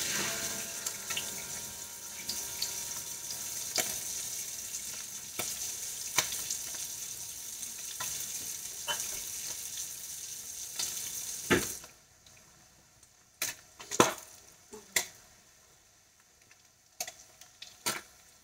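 Slices of Spam frying in hot oil in a nonstick skillet: a steady sizzle full of crackles from the oil spattering. About two-thirds of the way through, the sizzle drops away suddenly, leaving only scattered pops.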